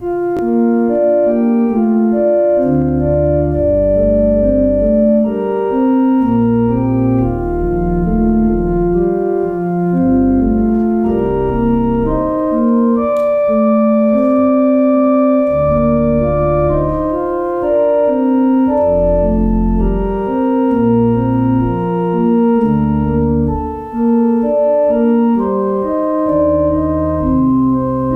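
Organ music playing slow, sustained chords over long-held low bass notes, with a brief pause between phrases near the end.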